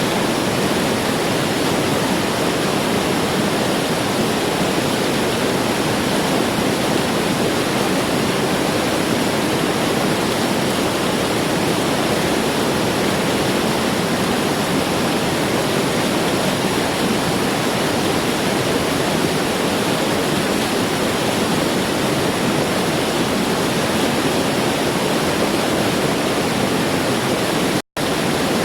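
Steady, loud rush of the Putna waterfall's falling water. It cuts out for an instant near the end.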